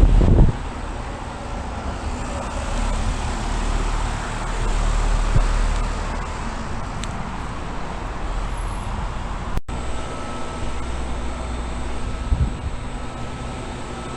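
Residential heat pump outdoor units running in cooling mode: a steady fan whoosh over a low compressor hum with faint steady tones. About two-thirds through the sound cuts out for an instant and resumes from a unit with a slightly different tone.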